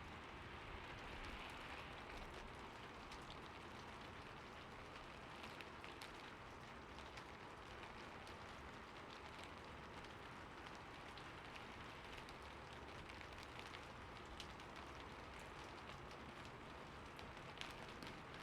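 Steady, soft rain falling, a continuous hiss with scattered sharp ticks of individual drops.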